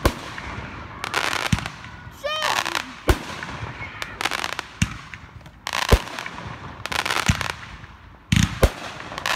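Aerial fireworks going off: sharp bangs of shells bursting about every second or so, mixed with short spells of crackling as the stars spread.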